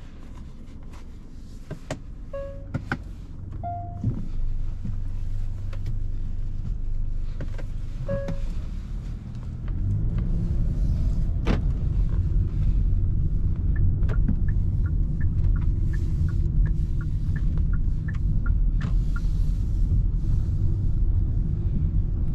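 Cabin sound of a 2020 Hyundai Sonata: a low idle hum with a few short electronic chime beeps and clicks while the push-button gear selector is worked. About ten seconds in, it pulls away and a louder low rumble of engine and tyres on the road takes over, with a run of light ticks partway through.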